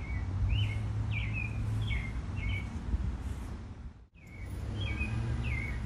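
A small bird chirping, a series of short, quick chirps about two a second, over a steady low outdoor rumble. The sound drops out briefly about four seconds in, then the chirping resumes.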